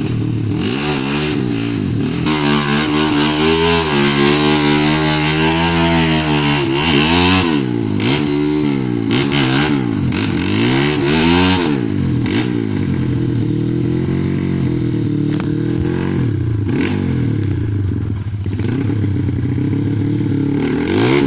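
Motorcycle engine revving up and down over and over, then running at a steadier speed.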